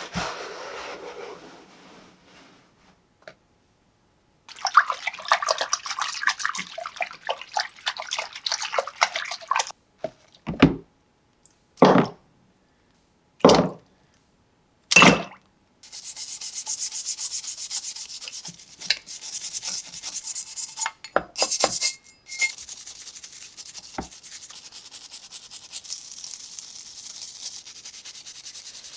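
A stiff brush scrubbing rusty antique wrench parts in soapy water in a plastic bin. It makes a steady, scratchy rasp over the second half. Earlier there is water-like noise as the bin is filled, then several short, separate knocks.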